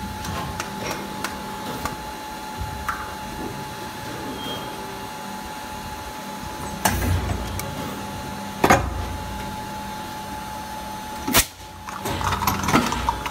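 Injection moulding machine running a cycle with a 16-cavity urine cup mould: a steady machine hum with a thin steady whine, then heavy clunks as the mould opens and a sharp knock, followed by a clatter as the moulded plastic cups are ejected and drop.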